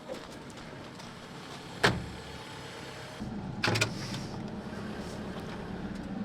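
Cat 308E2 excavator heard from its cab: a sharp click about two seconds in, then the machine picks up with a steady low hum a little after three seconds, with a couple of clunks just before four seconds.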